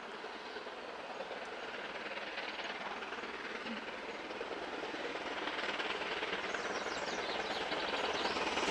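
Steam locomotive 70013 Oliver Cromwell, a BR Standard Class 7 'Britannia' Pacific, approaching under steam with a train of coaches; its exhaust and rail noise grow steadily louder as it nears.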